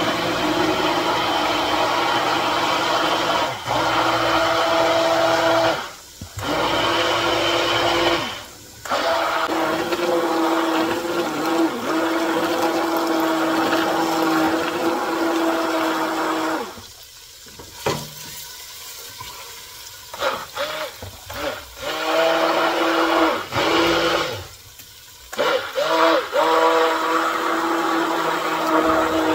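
Hand-held immersion blender running in a steel pot of liquid batter, a steady motor whine. It is switched off for a moment several times, with a longer pause of a few seconds in the middle broken by short pulses of the motor.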